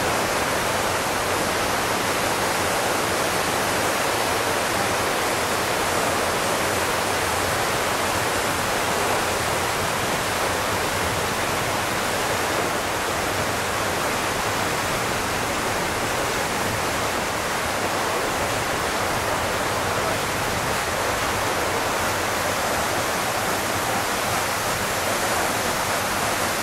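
Water cascading down the stone walls of the 9/11 Memorial reflecting pool and splashing into the basin: a steady, unbroken rush.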